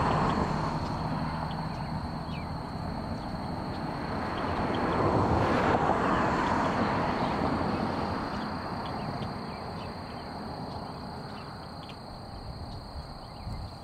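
Jet engines of a Southwest Boeing 737 on landing, heard from a distance as a broad roar that swells about five seconds in and then fades as the airliner rolls out along the runway.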